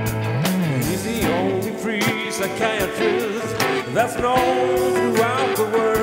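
Live rock band playing: electric guitars over keyboards and drums, with a lead line that bends and wavers in pitch.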